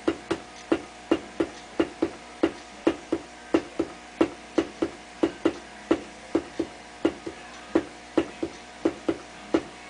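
Steady, even tapping, about two and a half knocks a second, over a faint steady hum. The taps feed a DMX controller's built-in microphone, which steps a sound-triggered LED lighting program on each hit.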